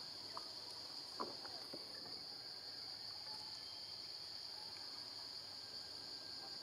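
Steady high-pitched insect chorus of crickets or cicadas, with a brief falling squeak about a second in.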